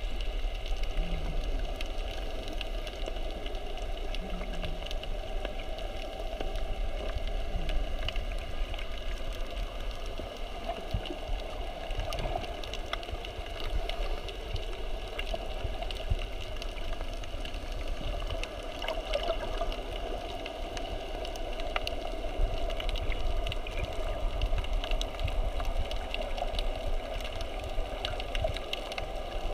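Steady, muffled underwater water noise with a low rumble and scattered faint clicks.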